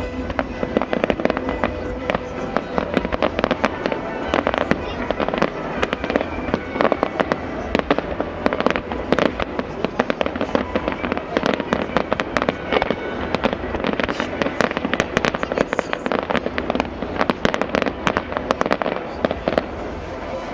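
Fireworks salute going off in rapid succession: a dense, continuous run of sharp bangs and crackles with no let-up.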